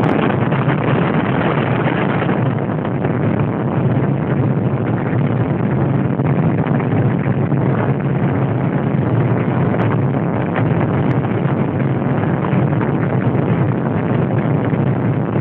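Helicopter heard from on board: a loud, steady engine and rotor drone with a low hum underneath.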